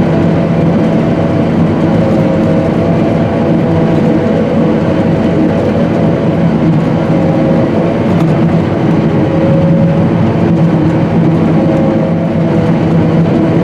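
John Deere 9600i self-propelled forage harvester running under load while chopping corn, heard from inside its cab: a steady, loud machine drone with a few held tones.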